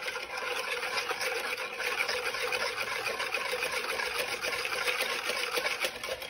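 Wire balloon whisk beating a thick mayonnaise-and-vinegar dressing in a mixing bowl. A steady, rapid, wet clatter of the wires through the dressing and against the bowl.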